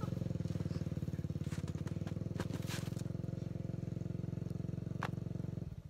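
Yamaha YZ250F dirt bike's single-cylinder four-stroke engine idling steadily, cutting off suddenly near the end, with a few light clicks over it.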